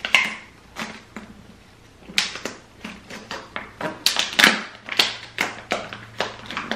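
Irregular crackling and tapping of a plastic bottle being handled as tape is wrapped around it and pressed down, holding plastic forks in place, with louder clicks about two seconds in and again around four and a half seconds.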